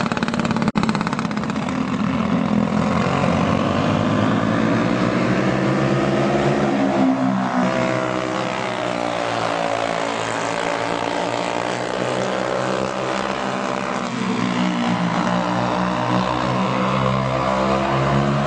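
Racing go-karts with Briggs & Stratton Animal four-stroke single-cylinder engines, revving hard with the pitch repeatedly rising and falling as the karts accelerate and lift through the laps. The sound cuts out for an instant about a second in.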